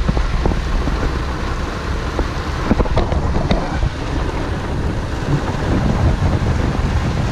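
Wind buffeting the microphone: a steady low rumble with a few scattered clicks.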